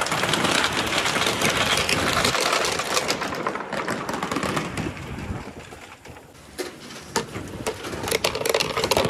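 Billiard balls rolling and clacking along a rain-gutter marble run with water flowing, a dense rattle of clicks over a rush of noise. It thins out about six seconds in, leaving scattered clacks near the end.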